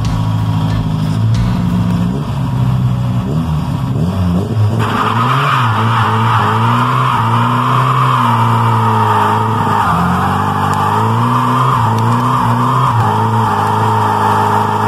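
FSO 125p's 1.5-litre four-cylinder engine revving and wavering in pitch as it spins a rear wheel in a burnout, held to about 2000–3000 rpm because it is still on choke. About five seconds in, the rear tyre breaks into a steady squeal that lasts to the end, with clouds of tyre smoke.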